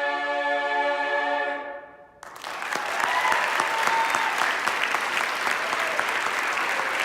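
A cappella barbershop chorus of mixed voices holding a final chord, cut off about two seconds in, followed at once by loud audience applause with some cheering.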